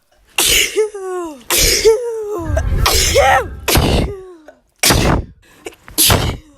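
A woman sneezing again and again, about six sharp sneezes roughly a second apart, several ending in a short falling voiced "choo".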